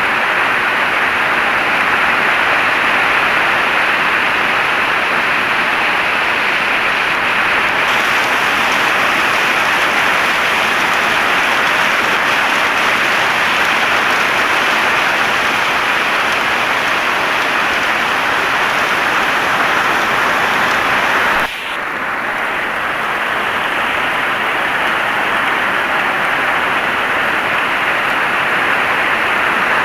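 Heavy rain falling steadily, a dense even hiss of drops, with a brief drop in loudness about two-thirds of the way through.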